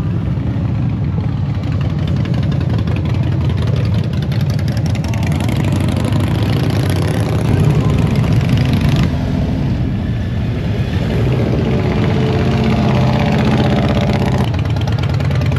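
Several motorcycle engines running as bikes ride slowly past, with the loudest pass about halfway through.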